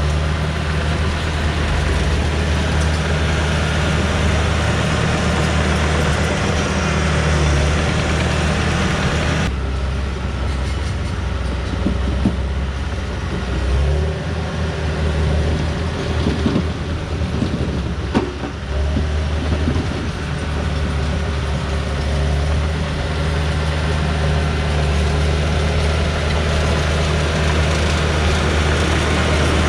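John Deere 450H crawler dozer's diesel engine running steadily as it pushes gravel, its note shifting briefly twice around the middle, with a few short knocks.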